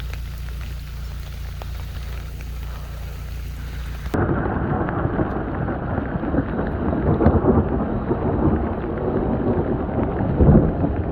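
Thunderstorm: rain falling over a steady low hum, then about four seconds in the sound jumps abruptly to a much louder, dense downpour with rumbling thunder.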